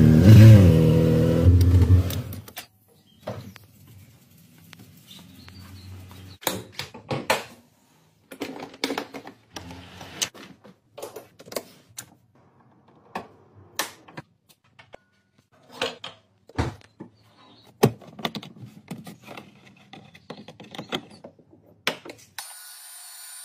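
A loud sound with a wavering pitch for about the first two seconds, then a string of separate sharp clicks and knocks as a rocker switch is pressed and covers and lids are handled, with a steady hiss coming in near the end.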